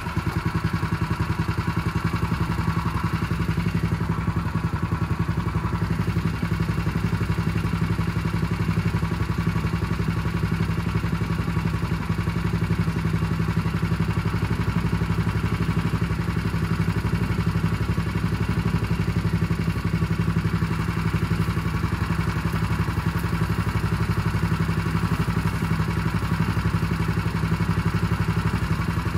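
Small gasoline engine of a Harbor Freight water pump running steadily at constant speed while pumping water out through the hose.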